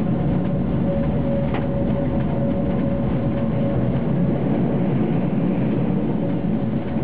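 Tram running along street track, heard from on board: a steady low rumble of wheels on rail with a steady hum over it. A brief click sounds about a second and a half in.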